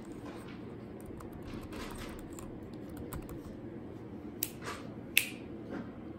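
Typing on a computer keyboard: a run of light key clicks, with a couple of sharper clicks about four and five seconds in.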